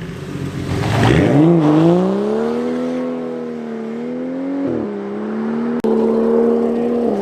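A car engine accelerating hard at full throttle. Its note climbs steeply about a second in, holds high, drops sharply at a gear change near five seconds in, then stays steady.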